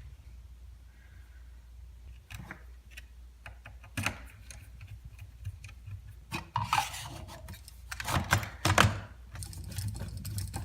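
Hands working on the loose grip of an airsoft pulse rifle replica to tighten it: scattered clicks and knocks of handled rifle parts, with two stretches of rubbing and scraping past the middle.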